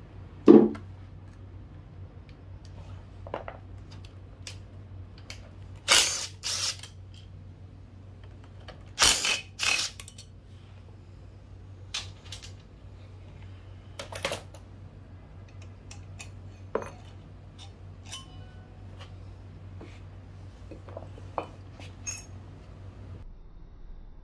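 Metal tools and small engine parts clinking and knocking against each other and the bench while the engine is taken apart. There is a dozen or so sharp knocks and ringing clinks, the loudest about half a second in and around six and nine seconds in, over a steady low hum that stops near the end.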